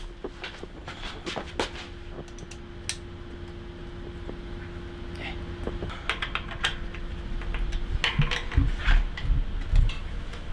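Irregular small clicks and taps of tools and bicycle parts being handled during road-bike assembly, over a faint steady hum, with a few heavier low thumps near the end.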